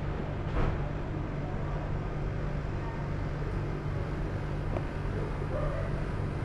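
Steady low hum of a stationary electric train's onboard equipment, heard from inside the car, with a single click about half a second in.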